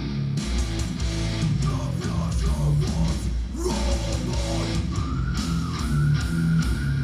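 Heavy metal music played through Behringer MS40 monitor speakers: a repeating low guitar riff over drums, with a higher lead guitar line that bends and holds its notes coming in about halfway.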